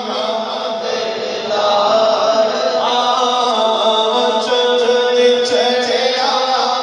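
A man's voice chanting a devotional recitation into a microphone and carried over the loudspeakers, with long held, melodic notes.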